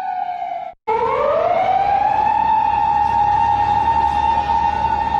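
Japanese police car siren sounding a slow wail. The tone sinks and breaks off briefly just under a second in, then rises again over about a second and a half and holds steady, over a low rumble.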